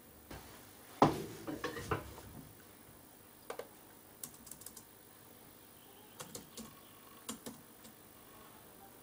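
Keys clicking on an HP laptop keyboard in short, scattered bursts of typing. About a second in there is a louder knock followed by a brief rustle.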